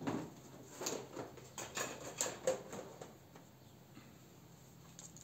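Light, irregular clicks and knocks of small items being handled on a workbench, dying away about three seconds in.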